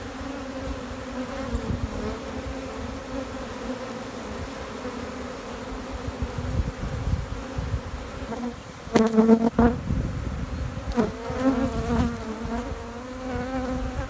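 A honey bee swarm buzzing, a steady dense hum of many bees, with single bees now and then flying close past with a wavering, shifting pitch. The swarm has been stirred up and many bees are in the air. About nine seconds in there are two sharp knocks and the buzz swells briefly.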